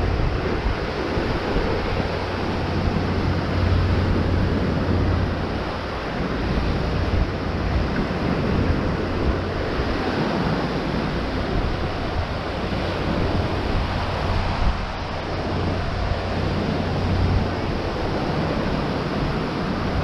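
Ocean surf washing steadily on the beach, with wind buffeting the microphone as a low rumble.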